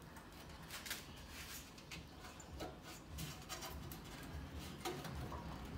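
Faint, scattered clicks and light knocks as a radiator and A/C condenser are pushed and worked down into their mounts.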